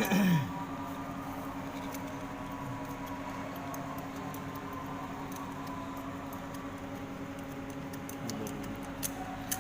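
A steady motor hum at one constant pitch, with faint scattered ticks.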